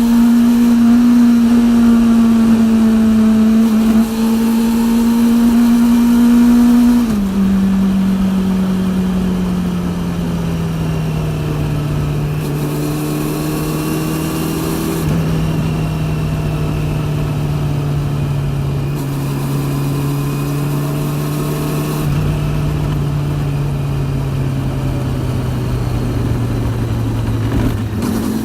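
Honda CB400 Super Four's inline-four engine through a TSR E02 slip-on exhaust, heard from on the moving bike. The engine note holds steady, drops suddenly about seven seconds in, then sinks slowly as the revs fall, with wind rushing past. The drive chain is also very loud in this recording.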